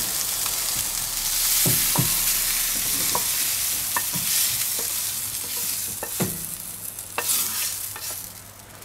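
Freshly fried diced bell peppers sizzling as they are tipped from a hot frying pan into a stainless steel bowl. Several sharp knocks of metal on metal break the sizzle, and the sizzle dies away near the end.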